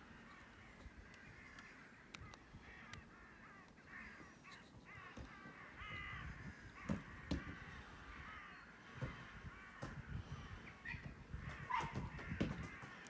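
Crows cawing faintly, a run of repeated calls, with a few soft knocks in the second half.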